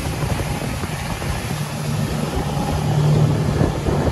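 Small motorboat's motor running steadily at speed, a low even drone, with wind and water rushing past.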